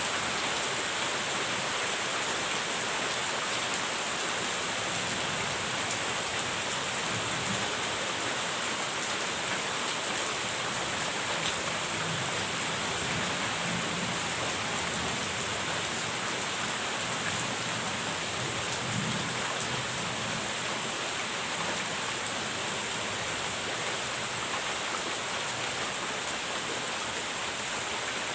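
Steady rain falling hard and even, with a few faint low rumbles of thunder under it.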